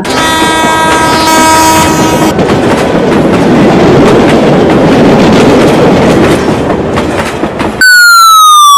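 Train sound effect: a steady train horn blast for about two seconds, then a train running along the rails with a clickety-clack, and near the end a loud tone falling in pitch.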